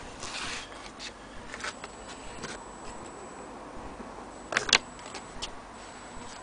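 Light handling noises: scattered small clicks and rustles, with one sharper double click a little over halfway through.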